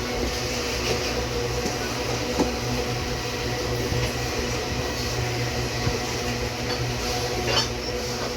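Steady mechanical hum from the ore train's diesel locomotive, with a few faint clicks and no wheel clatter.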